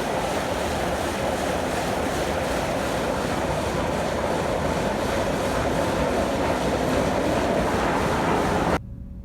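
Steady, loud rushing of a running column grain dryer's fan and the augers feeding it, drying corn. It cuts off suddenly near the end, giving way to a much quieter steady engine hum.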